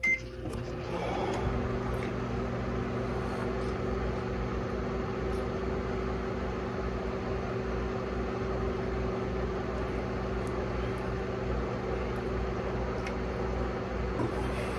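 A short electronic beep, then a microwave oven starts up and runs with a steady, even hum, used as the challenge's countdown timer.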